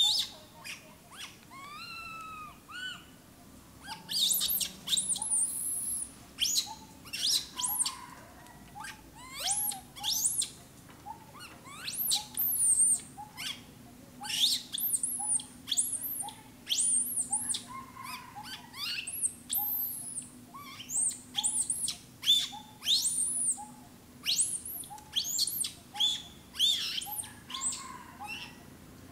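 Infant macaque crying: repeated high-pitched squealing calls that rise and fall, coming in bursts a second or two apart.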